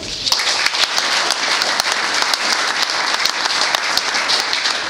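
A small audience applauding: many hands clapping at once. It starts just after a name is announced and keeps up steadily.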